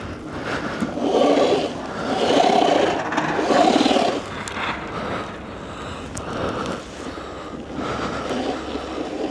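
Three surges of rough churning and scraping as a Sur Ron electric dirt bike stuck in deep snow is worked to get free, followed by lower, uneven scraping.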